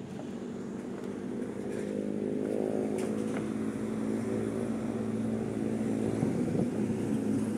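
A motor engine running steadily with a low, even hum, growing louder about two seconds in.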